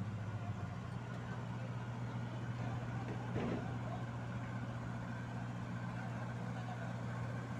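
Diesel engine of a Komatsu PC2000 hydraulic shovel running at a steady low idle, an even deep hum.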